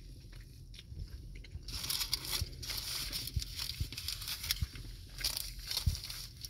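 A person chewing a mouthful of breakfast burrito close to the microphone. The chewing starts about two seconds in, with irregular small clicks and crackles.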